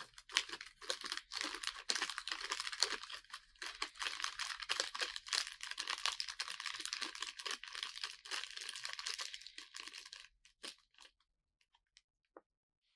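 Small clear plastic bag of cat-tree assembly bolts crinkling as it is pawed at and the bolts are tipped out, with many small clicks. The crinkling stops about ten seconds in, leaving a few faint clicks.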